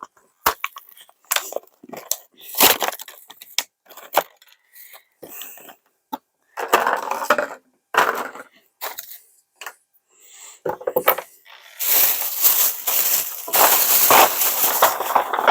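Plastic toy bags being torn open and crinkled, with sharp clicks and taps of small plastic parts. The crinkling grows louder and longer over the last few seconds.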